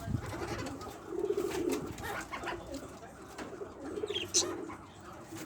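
Domestic pigeons cooing: several low, pulsing coos in a row, with one short high chirp a little after four seconds in.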